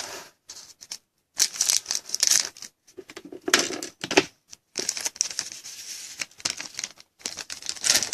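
A trading-card pack's foil wrapper crinkling and tearing as it is opened, in several irregular bursts with short silent gaps.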